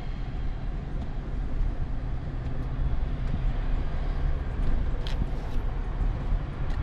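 Pickup truck's engine idling steadily, heard from inside the cab, with road traffic going by; a light click about five seconds in.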